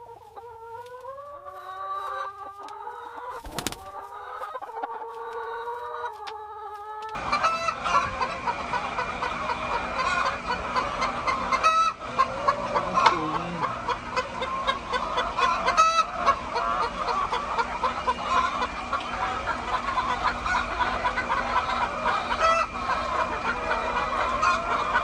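A flock of hens clucking and cackling together in a coop: a dense, steady chorus that starts abruptly about seven seconds in. Before it there are a few seconds of held, slowly gliding tones and a single sharp click.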